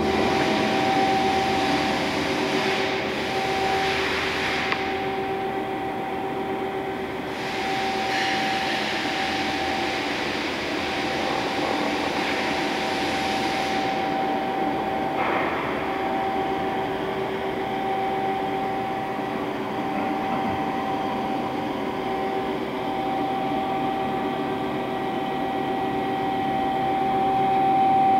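Steady hum of a powered-up CNC lathe standing idle, with two steady tones. Long stretches of hissing come and go in the first half.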